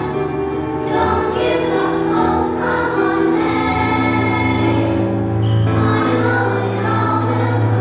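A group of children singing a musical-theatre number together over instrumental accompaniment with a steady bass line.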